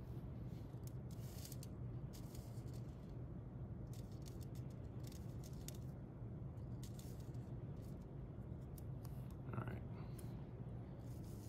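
Faint, scattered light clicks and taps of small urea beads and a micro spatula on aluminium foil as the beads are pushed into a pile, over a steady low hum.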